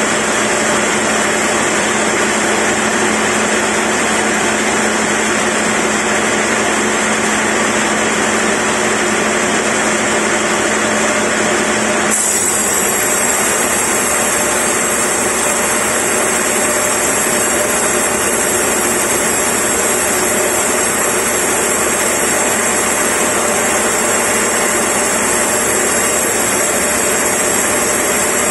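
Band sawmill cutting lengthwise through a large timber block, the blade and machine running with a steady loud noise. Its tone changes abruptly about twelve seconds in.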